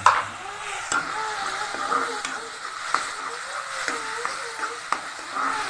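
Chopped onion, tomato and ginger sizzling in hot oil in a pan while a spatula stirs them, knocking sharply against the pan every second or two.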